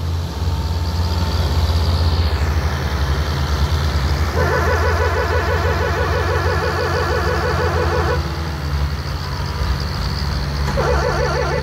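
Diesel tractor engines running hard under load. A warbling multi-tone horn sounds for about four seconds in the middle and starts again briefly near the end.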